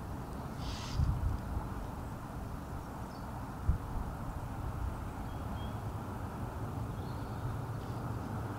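Wind buffeting the microphone, a steady low rumble that swells about a second in, with a single sharp knock a few seconds later. A short bird call sounds just before the swell, and a few faint chirps come later.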